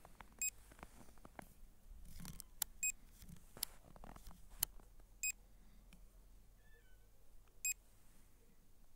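Electronic warning beeps from a drone's remote control: a short beep of several tones repeating about every two and a half seconds, four times, with faint clicks and handling noise between.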